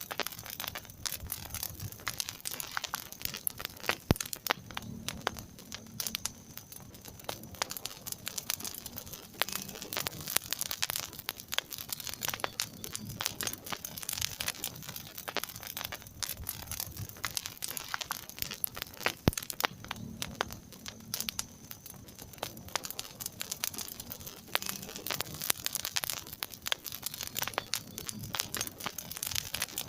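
Wood fire in a fireplace crackling and popping: dense, irregular small pops with a few sharper, louder snaps, about four seconds in and again near nineteen seconds, over a low rumble of the flames.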